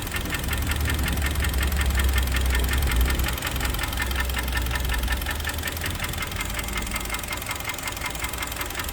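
Kia Sportage 3's 2.0 G4KD four-cylinder petrol engine, warmed up and idling, with a steady rapid knock through the running. The engine came in for this knock and is due for a major overhaul; the uploader points to scored cylinders as the cause. A low drone under it eases about halfway through.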